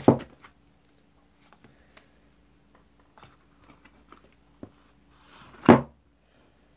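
Handmade cardstock box laminated with clear plastic being handled: a sharp tap as its top flap is closed at the start, light taps and rustles from fingers on the box, then a short rub ending in a louder thump about five and a half seconds in.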